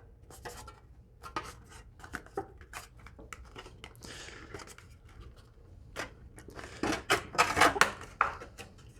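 Sheet-metal step flashing being folded and worked by hand with hand tools: a run of sharp clicks and crinkles of bending metal, with a louder cluster about seven to eight seconds in.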